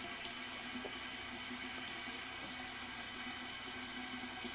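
Bathroom faucet running a thin, steady stream into a sink basin.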